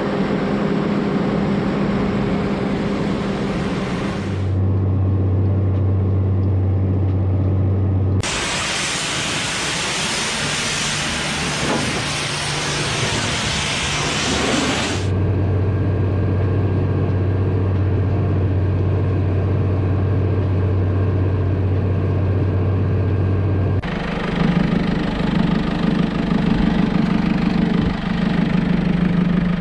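Heavy farm-machinery engine running steadily, in stretches that switch abruptly between a low hum and a higher drone. For about seven seconds in the middle a loud hiss covers it.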